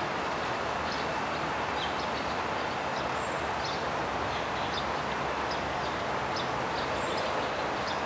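Steady outdoor rushing noise with small birds chirping briefly every second or so.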